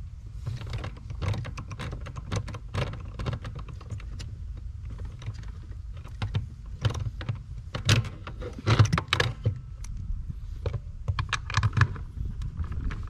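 Irregular clicks, clinks and knocks of hand tools on metal car parts, heaviest in the second half, over a steady low hum.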